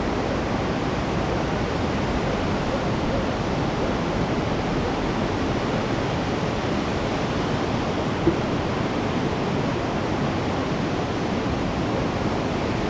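Water pouring steadily over a river weir and onto the rocks below: an even, unbroken rush of falling water. A single brief click comes a little past halfway through.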